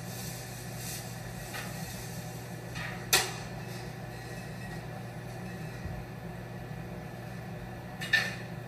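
Two sharp knocks about five seconds apart, the first the louder, as props are handled on a table, over a steady low hum.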